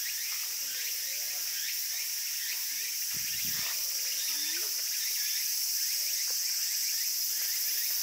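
Steady, high-pitched chorus of summer cicadas shrilling in the trees, with a brief low rumble a little over three seconds in.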